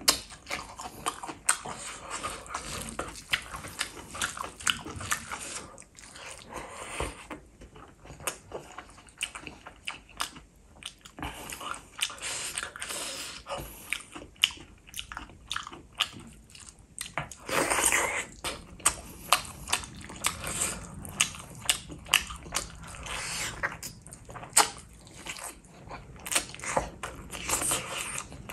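Close-up eating sounds of a person chewing and biting chicken and rice in gravy: wet mouth noises made of many sharp, irregular clicks. A louder rush of noise about a second long comes roughly two-thirds of the way through.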